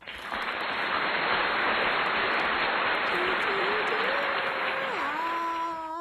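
Applause sound effect: a dense crowd clapping that starts abruptly. About three seconds in, a voice whoops, rising in pitch and then held near the end.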